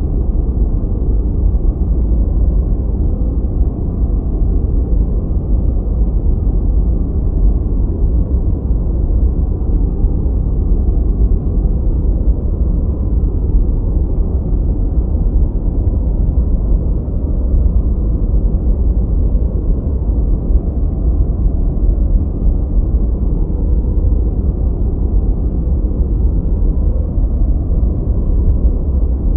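Continuous 'white noise' track for studying: a steady, unchanging rush of noise that is deep and rumbling, with its weight at the bottom and no high hiss.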